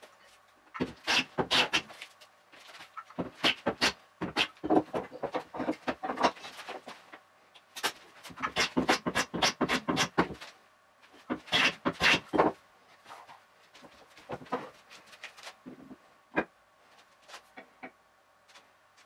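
Hand plane strokes on a wooden rail, planing its top to a bevel, played back sped up four times so they come as rapid runs of short scraping swishes. The runs thin out after about 13 seconds into a few scattered knocks and scrapes, one sharp knock standing out.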